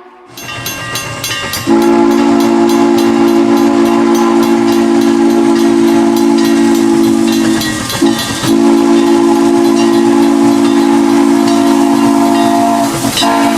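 A train whistle sounds a chord of several low notes in two long blasts: the first starts a couple of seconds in, and the second follows a brief break about eight seconds in. Underneath is the sound of the moving train, with a regular clicking beat in the first few seconds.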